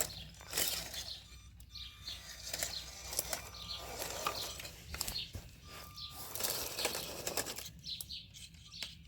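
Small electric RC crawler, an MN90 Defender, driving over rough ground: irregular crunching and scraping with scattered clicks, rising and falling.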